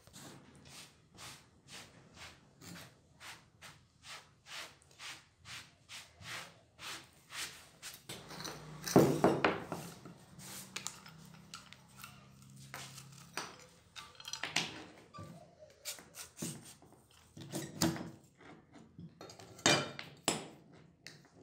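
Rusty metal camera housing being handled and worked apart on concrete: a run of evenly spaced clicks, about three a second, then a louder scraping clatter about nine seconds in and a few separate knocks.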